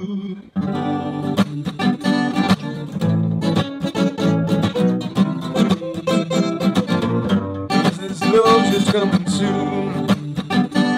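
Music: an instrumental stretch of a song, led by guitar, with no words sung.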